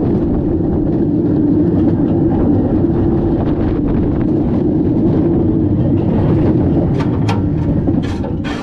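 Gerstlauer Euro-Fighter roller coaster train rolling along its steel track, a steady loud rumble of the wheels. Near the end come a few sharp clicks and the rumble begins to fade as the train slows.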